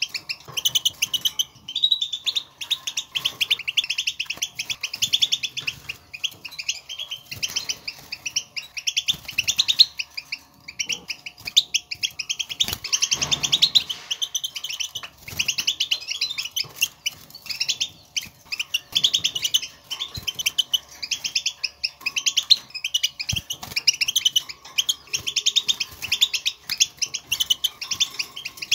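European goldfinch twittering chatter: a fast, continuous stream of short, high chirping notes. This is the goldfinch's contact chatter ('بتبتة'), used to stir other goldfinches into song.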